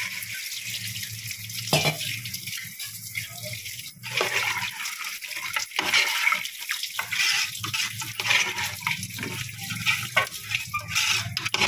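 Water being poured into a metal pot of mutton curry masala, running and splashing into the gravy, with a few short knocks later on.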